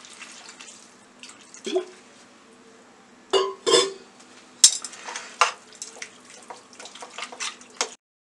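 Water poured from a glass into a stainless-steel pan of simmering masala, trailing off in the first second. Then a few loud knocks and clinks of metal against the pan, followed by quicker, lighter scraping and clinking as a perforated steel spoon stirs the mixture. The sound cuts off just before the end.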